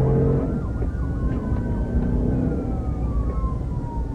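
Police car sirens wailing, with two overlapping tones that sweep slowly up and down in pitch, over the steady low rumble of the pursuing patrol car's engine and road noise.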